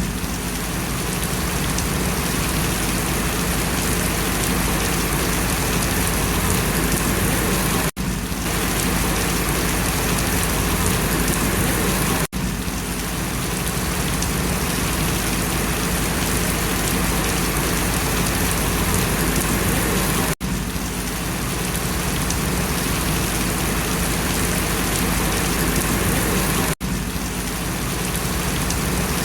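Steady, dense rain falling on banana leaves, a continuous hiss of drops. The sound cuts out for an instant four times, like splices in the recording.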